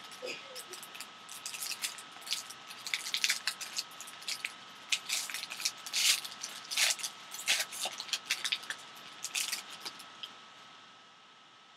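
Foil wrapper of a 2012 Panini Signature Series baseball card pack crinkling and tearing as it is ripped open by hand, a quick irregular run of crackles that dies away about ten seconds in.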